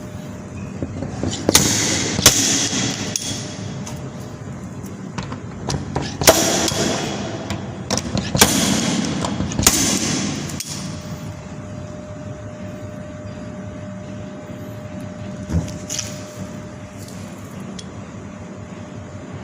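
Sharp knocks from dent repair work on a car body, five of them in the first ten seconds, each followed by about a second of hiss or ringing, then a steady background hum with a faint steady tone.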